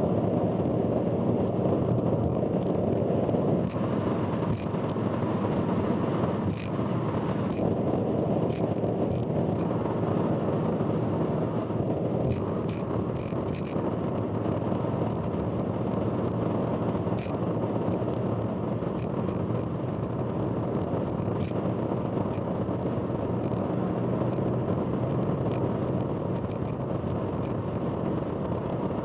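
Car driving on an expressway, heard from inside: a steady rumble of road and engine noise, with frequent irregular sharp clicks throughout. This is the loud abnormal noise the uploader warns of.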